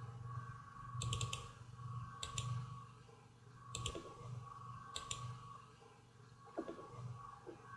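Computer mouse clicking about four times, roughly a second apart, each click a quick double tick of button press and release, over a faint steady electrical hum.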